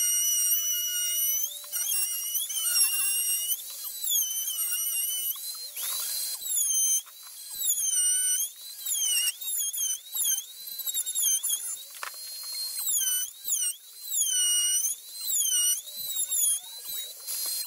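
Ryobi trim router running at full speed and cutting into a wooden board, its high whine dipping in pitch over and over as the bit takes load and climbing back as it eases off.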